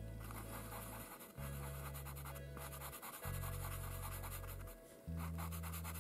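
White pastel pencil scratching in quick short strokes on Clairefontaine Pastelmat paper as highlights are laid into a paw pad. Soft background music plays underneath, its low sustained notes changing about every two seconds.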